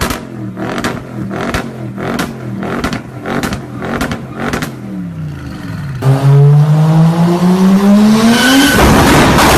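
A car engine, pulsing rhythmically about three times a second. About six seconds in it becomes much louder and runs up with its pitch climbing steadily. Near the end it turns into a loud, harsh, noisy roar.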